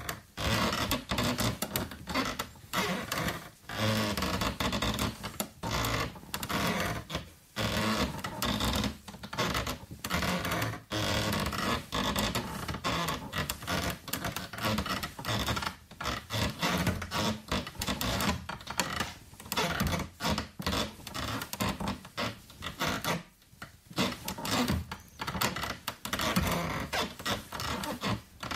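Wood creaking: a dense, irregular run of creaks and scrapes, broken by a few short pauses.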